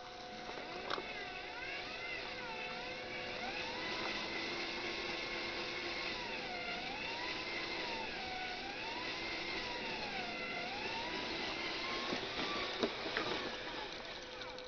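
Electric drive motors and gearboxes of radio-controlled dump trucks whining, the pitch rising and falling every couple of seconds as the throttle is worked, with a few sharp clicks near the end.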